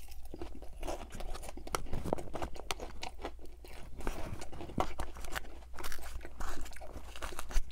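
Close-up chewing and crunching of a mouthful of crisp salad lettuce, with irregular crisp crackles throughout, mixed with a metal fork clicking and scraping in a plastic takeout container.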